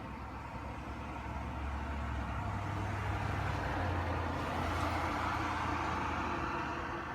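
A motor vehicle passing on the street, its engine rumble and tyre noise swelling to a peak about four to five seconds in, then fading.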